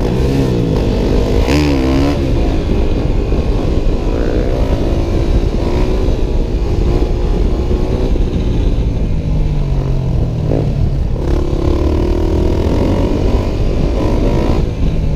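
Dirt bike engine running under way, its pitch rising and falling as the throttle is opened and closed, over a steady low rumble.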